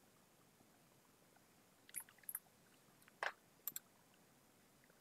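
Near silence broken by a handful of sharp computer clicks, several in quick pairs, from about two to four seconds in.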